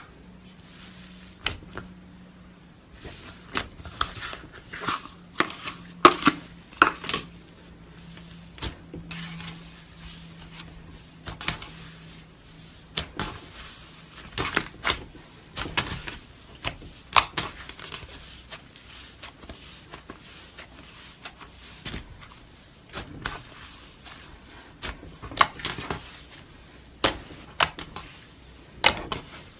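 Slime being squeezed and pressed by hand, giving irregular sharp clicks and pops, several a second, some much louder than others.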